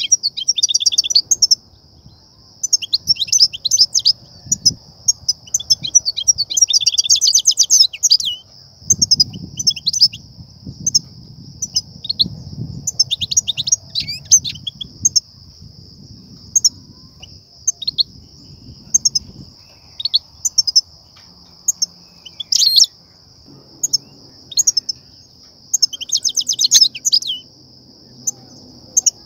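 European goldfinch twittering and chirping in quick, bright bursts with short pauses between them: the excited song used to stir up other goldfinches and draw them to trappers' nets. A steady high hiss runs underneath.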